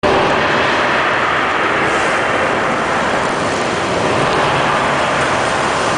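Steady, loud rush of heavy artificial rain pouring down in a simulated indoor thunderstorm.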